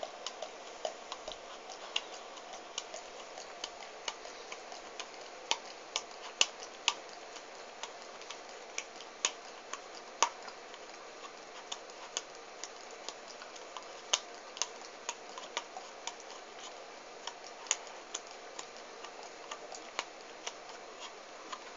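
Greyhound licking out a plastic yogurt pot: quick, irregular clicks and taps of the tongue against the pot, a few each second.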